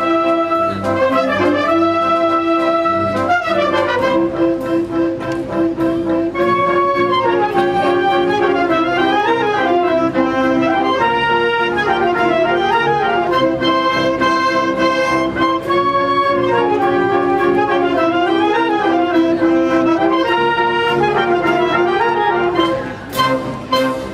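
A wind band playing a pasodoble live, with brass (trumpets and trombones) carrying sustained chords and a turning melody over clarinets and low brass. Near the end the playing drops quieter.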